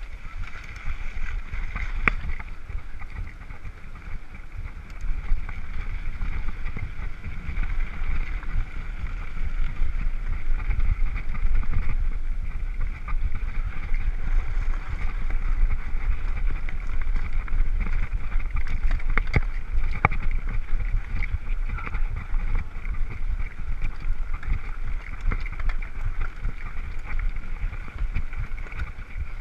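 Mountain bike riding over a gravel track: wind rumbling on the microphone with tyre noise and rattling from the bike, and a few sharp clicks, around two seconds in and again near the middle.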